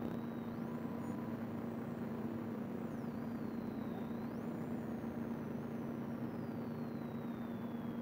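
Patrol car's engine and cabin noise: a steady droning hum with a constant mid-pitched tone over a rushing haze, heard from inside the car.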